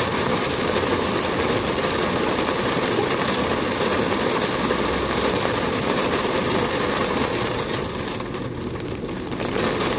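Heavy rain pelting the car's roof and windshield, heard from inside the moving car, over the car's engine and tyres on the wet road. The hiss eases briefly near the end.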